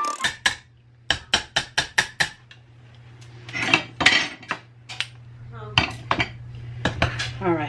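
Wire potato masher knocking against a stainless steel saucepan as boiled potatoes are mashed: a quick run of metal clinks, about four a second, then scraping and a few scattered metal knocks on the pot.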